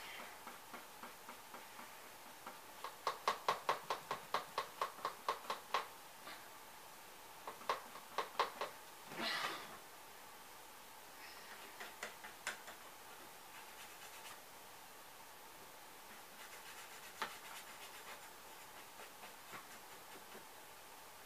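Quick, light taps of a paintbrush and hands on a popsicle-stick house, a run of about five a second for a few seconds, a few more taps, then a short rustle, followed by scattered faint clicks.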